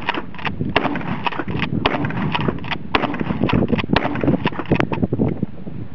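Wind buffeting an outdoor microphone: a steady low rumble broken by many irregular crackles and clicks.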